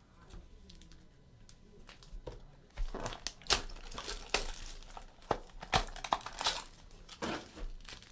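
Trading card pack wrapper being torn open and crinkled by hand. It starts faint, with a few light clicks, and turns into loud, dense crackling about three seconds in.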